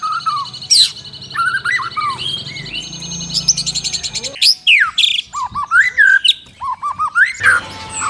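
Caged songbirds singing: varied clear whistled phrases and quick up-slurred notes over a fast, high trill that runs through the first three seconds or so.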